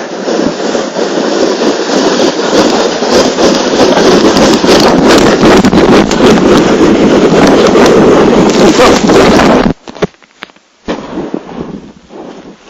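Plastic hip sled sliding fast over snow, a loud, crackling scrape that grows over the first few seconds and holds, then stops abruptly near the end as the sled comes to a halt.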